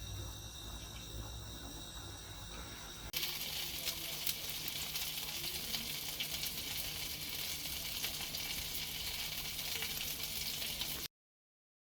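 A steady low hum for about three seconds, then food sizzling and crackling in a hot pan, which cuts off suddenly near the end.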